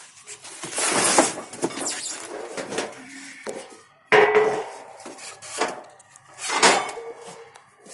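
Sheet-metal petals of a 4-foot C-band satellite dish being pulled from their packing and set down on a concrete floor, clattering and scraping in several bouts, the most sudden about four seconds in with a short metallic ring.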